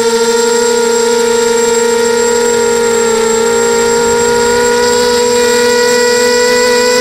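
Electric motors and propellers of a QAV280 FPV quadcopter, picked up by its onboard camera, running with a steady multi-tone whine whose pitch shifts slightly a little past the middle, as the throttle holds near cruise.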